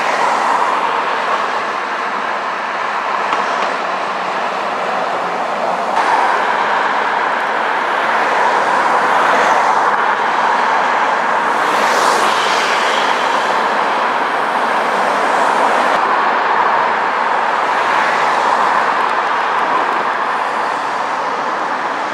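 Scania city buses driving past on a road, a steady rush of engine and tyre noise with passing vehicles swelling briefly about halfway through.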